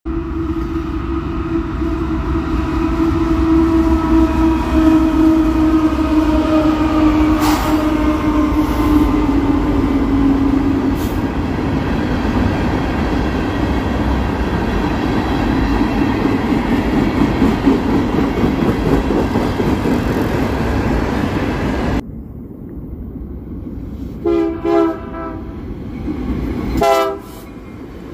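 A locomotive air horn sounds a long multi-tone chord as a train passes, its pitch dropping slightly as it goes by, over the loud rumble of the train rolling past. After a cut it is quieter, and the horn gives two short toots and then one more short toot.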